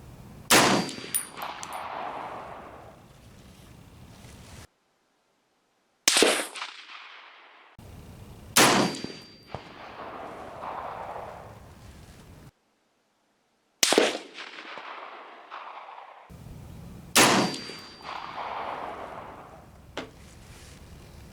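Five single shots from a National Match M1A .308 semi-automatic rifle, fired a few seconds apart. Each shot echoes and rolls away for a second or two, and a short metallic ring follows three of them.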